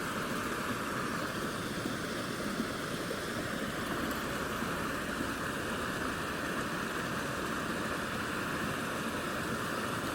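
Mountain stream water running steadily into a small pool, an even, unbroken water noise.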